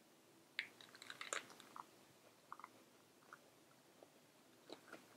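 Faint crunching and chewing of fresh spring rolls, rice paper wrapped around raw lettuce, carrot and cucumber, by two people eating. A cluster of small crunches comes about a second in, then scattered ones.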